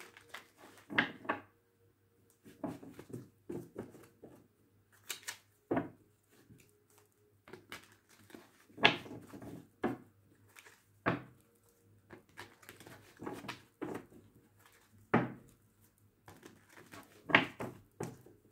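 A deck of tarot cards being shuffled and handled: a string of irregular taps and slaps of the cards.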